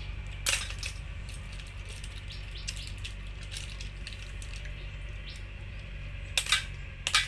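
Snail shells and metal picks clinking against a stainless steel bowl of boiled bitter snails: a sharp clink about half a second in, small ticks between, and a cluster of clinks near the end.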